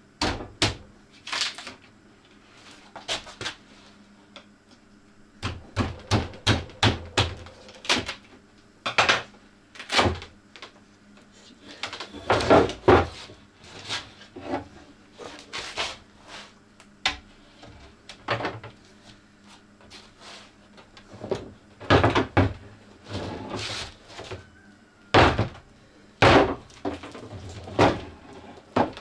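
Irregular knocks, thuds and some scraping as a glass-fibre wind-turbine blade mould is unbolted and prised open, its halves handled and set down on a wooden workbench, with a quick run of knocks a few seconds in.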